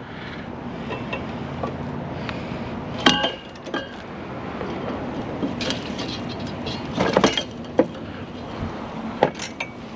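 Metal clanks and clinks from scrap being handled, one sharp ringing clang about three seconds in and a cluster of knocks around seven seconds, over the steady running of a vehicle engine.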